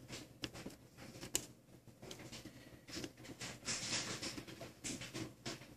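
Small screwdriver working the tiny screws out of a Samsung Galaxy Note 2's plastic back frame: faint, irregular clicks and light scraping, with one sharper click about a second and a half in.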